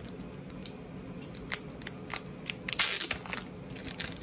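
Packaging being opened by hand: scattered crackles and clicks, with a louder crinkling, tearing burst about three seconds in.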